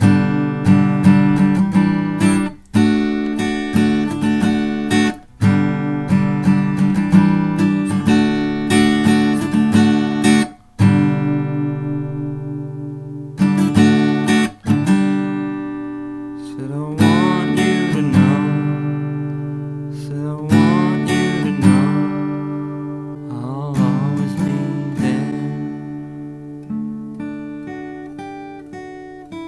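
Background music on acoustic guitar: quick, steady strumming for the first third, then slower chords left ringing, with a few sliding notes in the second half.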